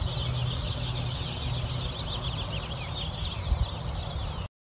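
Many small birds chirping in a dense chorus of quick, high chirps over a steady low hum. The sound cuts off suddenly near the end.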